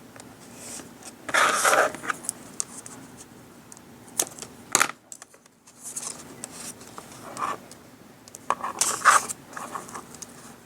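Hands working craft materials on a table: scattered clicks, short scrapes and rustles of plastic and tools, loudest about a second and a half in and again near the end.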